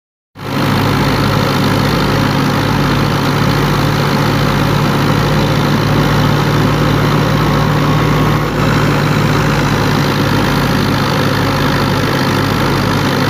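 Fiat 640 tractor's diesel engine running steadily under load, driving a wheat thresher, mixed with the steady whirring rush of the thresher at work.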